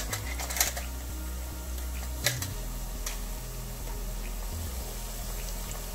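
A metal spoon clicks a few times against stainless steel spice tins and the frying pan, a cluster of clicks near the start and one sharp click about two seconds in. Under it runs a steady low hum and the faint sizzle of onions frying in oil.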